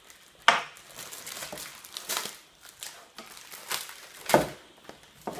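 Plastic packaging crinkling and rustling in irregular bursts as spring clamps are worked free of it, with a sharp click about half a second in and a louder crinkle near the end.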